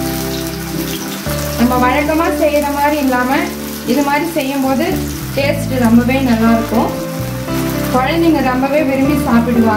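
Background music, a melody over held bass notes, with oil sizzling beneath it as raw plantain slices are laid one by one onto a hot oiled dosa tawa.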